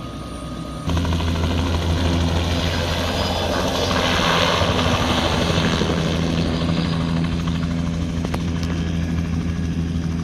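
Bell 206 JetRanger helicopter lifting off and flying away: a steady low rotor drone with turbine noise. It jumps suddenly louder about a second in, peaks around four to six seconds in, then eases slightly.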